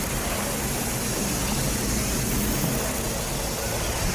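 Cartoon sound effect of a gushing blast of water and mist: a steady rushing noise.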